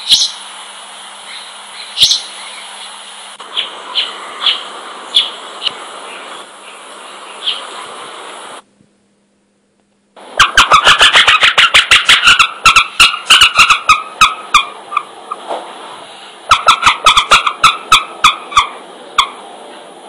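Bird recordings played back one after another. First come an Acadian flycatcher's short, sharp, high calls, about one a second, over a steady background hiss. After a second and a half of silence, a second bird recording follows: fast chattering calls laced with rapid clicks.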